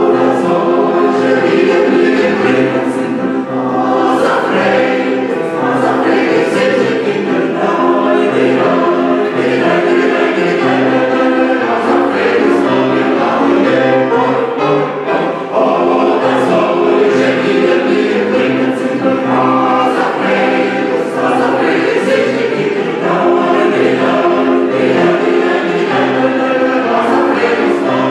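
Mixed choir of women's and men's voices singing under a conductor.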